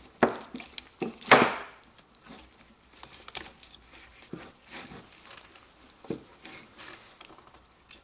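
Gloved fingers picking at and peeling back crinkly yellow insulating tape wrapped around a component on a circuit board: scattered crackles, tearing and small clicks, the loudest burst about a second in.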